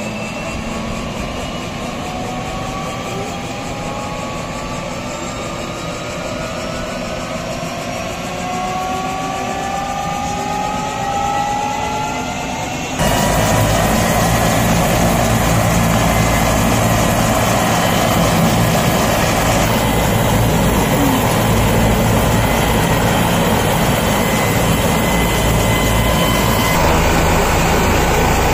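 Helicopter on the ground with its engines running up: a whine rising slowly in pitch for the first dozen seconds, then about 13 seconds in the sound jumps abruptly to a louder, steady rotor and engine noise.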